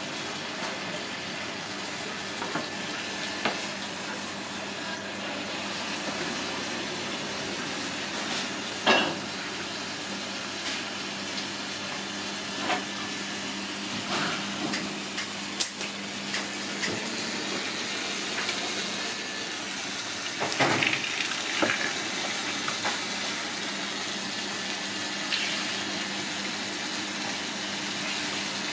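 Steady rush of running water with a low, even hum beneath it, broken by a few short, sharp clicks.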